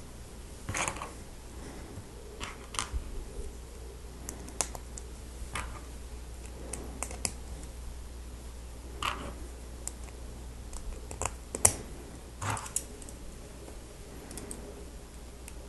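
Lego Technic plastic pieces being handled and snapped together: irregular sharp clicks and small knocks, one louder click about two-thirds of the way through, over a low steady hum.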